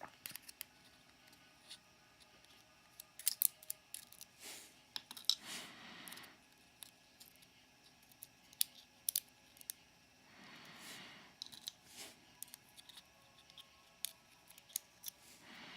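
Small metal lock pins and hand tools being handled on a bench while the pin stacks are taken out of a Mul-T-Lock cylinder: scattered light metallic clicks and taps, with two soft scraping sounds, the first about six seconds in and the second about eleven seconds in.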